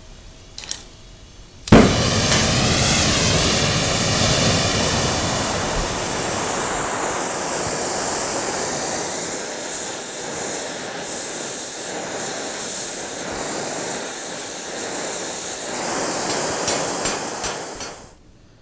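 Oxy-acetylene torch flame coming on suddenly about two seconds in, then a steady loud rushing hiss as it heats a metal rose petal on the anvil, cutting off shortly before the end.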